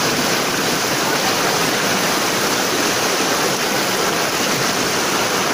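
Fast-flowing floodwater rushing and churning around people wading waist-deep: a steady, even rush of water.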